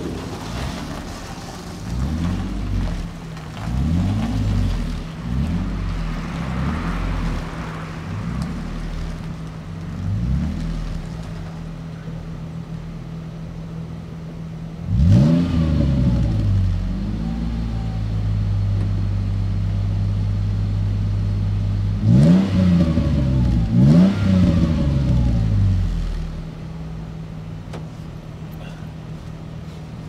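Ford Mondeo ST220's 3.0-litre V6 running cold and warming up, blipped repeatedly in a series of short rev rises and falls. Around the middle it is held at raised revs for a few seconds, then given a few more blips before settling back to a steady idle near the end.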